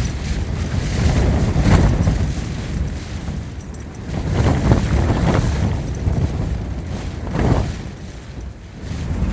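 Strong gusting wind battering the microphone, a loud low rumble that swells and eases in surges about every two to three seconds.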